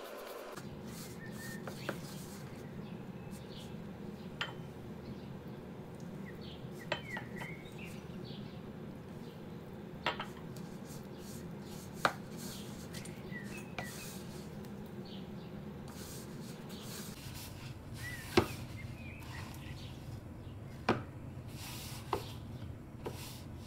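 Hands rubbing and squeezing crumbly samosa dough in a plastic bowl, with scattered sharp clicks and knocks against the bowl about ten times, the loudest near the end, over a steady low hum.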